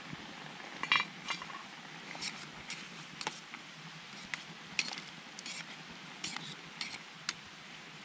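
A utensil stirring food in a small metal camp frying pan, clinking and scraping against the pan at uneven intervals.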